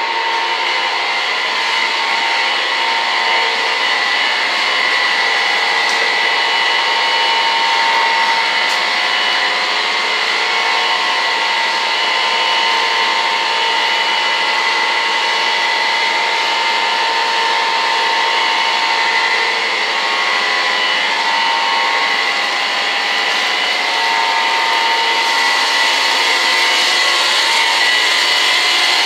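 Steady whine of an electric motor-driven blower or fan running without a break, with several steady high tones over a rushing noise. It grows brighter and a little louder near the end.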